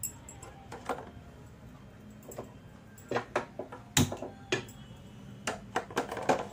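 Irregular sharp clicks and clinks from a flat iron tawa being handled on a gas stove as the burner is turned on, the loudest knock about four seconds in.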